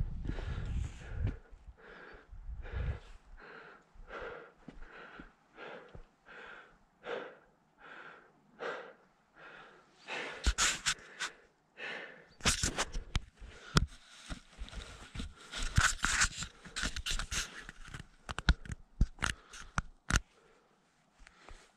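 A hiker's fast, heavy breathing, about two breaths a second, on a steep high-mountain climb. About halfway through, sharp clicks and knocks join in, typical of boots and gear striking rock.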